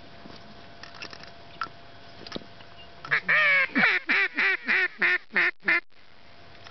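Hunter's duck call blown in a mallard hen's cadence. About three seconds in comes one long drawn-out quack, then a run of about seven shorter quacks, roughly four a second, each dipping in pitch, like a greeting call.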